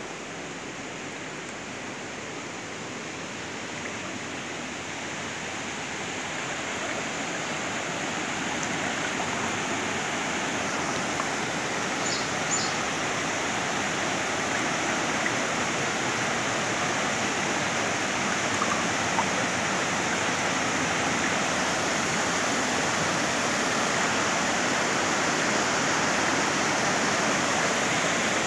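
Muddy floodwater rushing, a steady noisy rush of moving water that grows gradually louder partway through.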